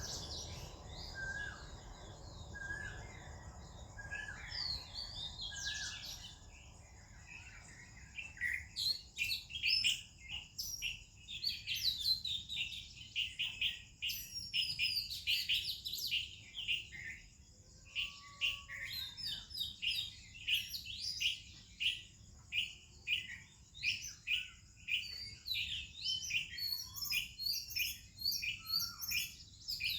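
Oriental magpie-robin and other songbirds chirping and singing. At first a short falling whistle repeats about once a second; from about eight seconds in, a dense stream of quick, high chirps takes over.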